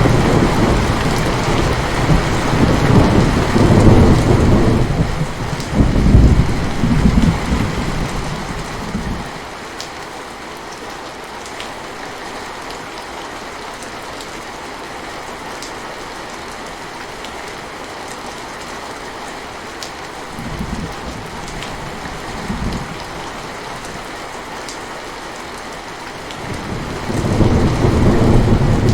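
Steady rain with rolling thunder: a long low rumble for the first nine seconds or so, two short rumbles past the middle, and another rumble building near the end.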